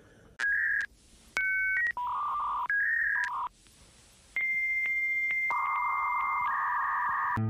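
Electronic beep tones like telephone keypad tones: a quick run of short, steady beeps at changing pitches, then after a brief pause a long held tone, joined about a second later by a lower one, both stopping together near the end.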